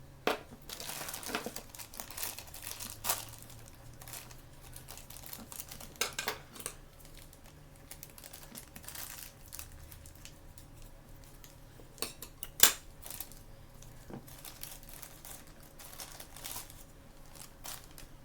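Plastic toy packaging crinkling and rustling in bursts as it is handled and opened, with sharp clicks and snaps; the loudest snap comes about two-thirds of the way through.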